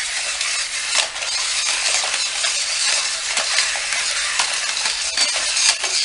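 Black Series MMA Cage Fighters remote-control toy fighters running: the battery motors in their bases whir steadily as the figures spin, with frequent plastic clicks and clacks as the arms and legs strike each other.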